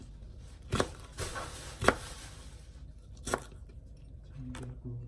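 Knife chopping on a cutting board: three sharp, separate chops about a second apart, with a softer one between the first two.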